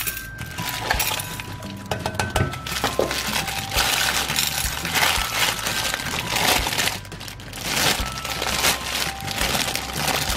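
Clear cellophane wrapper crinkling and rustling as it is pulled open, after small green pebbles clink and rattle into a glass dish in the first couple of seconds. A simple background tune plays softly underneath.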